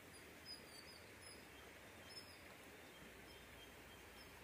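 Very faint outdoor background hiss with a few short, high bird chirps scattered through it, the clearest about half a second in and again about two seconds in.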